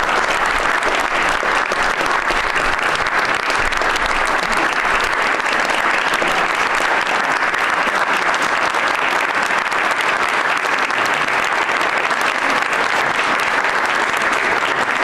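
An audience in a room applauding steadily, a dense patter of many hands clapping without a break.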